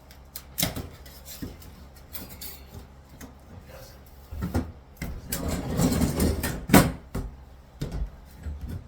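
Irregular knocks, clatter and scraping of hand demolition work on a bathroom wall, busiest and loudest around two-thirds of the way in, with one sharp hit.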